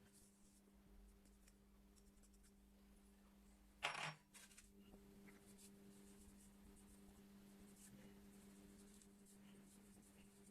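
A steady low hum, with one short, sharp clink about four seconds in and a few faint ticks.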